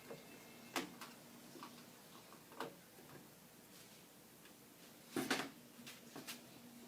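Scattered sharp clicks and taps of parts being handled and fitted on a microwave's control panel, about four in all, the loudest a quick cluster near the end, over a faint steady hum.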